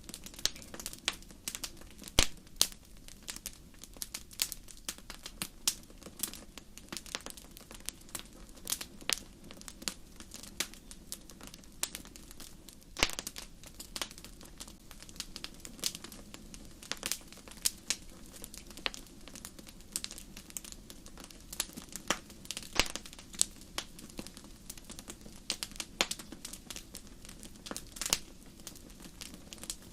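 Campfire crackling: irregular sharp pops and snaps of burning wood, many a second and uneven in loudness, over a steady low background.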